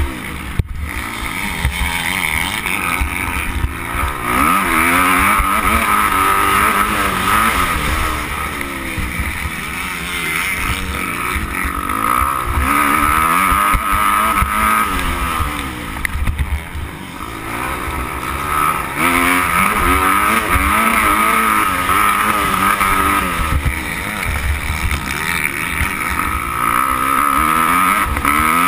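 Motocross bike engine revving up and down again and again at race pace, heard close up from a camera on the bike, with low wind rumble on the microphone. The revs drop off briefly about two-thirds of the way through.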